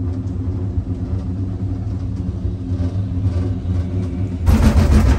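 Steady low hum and rumble of a cableway gondola cabin in motion, with a louder rumble swelling near the end.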